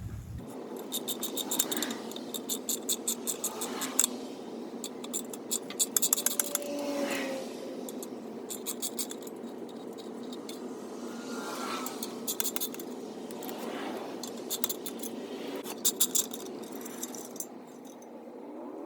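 Hand ratchet wrench loosening bolts on a small engine's cylinder head and muffler: short runs of rapid clicking, repeated every few seconds, with light metallic rattles between, over a steady background hum.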